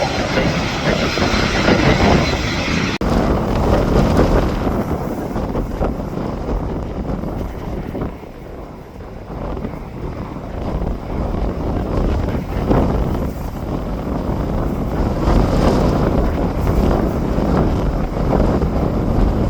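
Aircraft engine noise mixed with heavy wind buffeting the phone's microphone. The high rushing part cuts off abruptly about three seconds in, leaving a gusting, rumbling noise that rises and falls.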